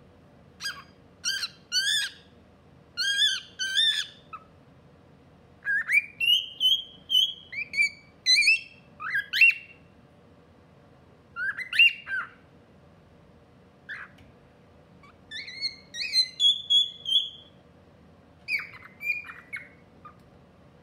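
Albino pearl cockatiel chattering in short runs of chirps and whistled notes, about eight bursts of a few notes each with pauses between.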